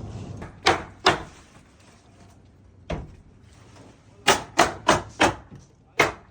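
Hammer blows on wooden framing: two strikes about half a second apart early on, a single one in the middle, then a quick run of four and one more near the end.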